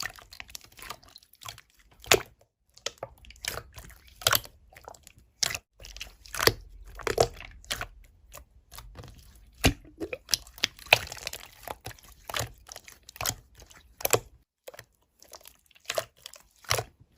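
Slime being squeezed, stretched and poked by hand, making a steady run of irregular sticky clicks, pops and crackles.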